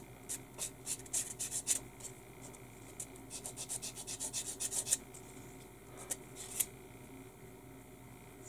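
A small plastic model wheel rubbed back and forth on a flexible sanding stick to smooth the seam of its glued halves. The quick scratchy strokes come at about five or six a second in two runs, stop about five seconds in, and are followed by two single strokes and faint rubbing.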